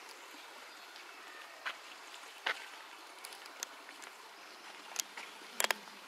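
Outdoor ambience: a steady faint hiss with a few sharp clicks scattered through it, the loudest a quick double click near the end.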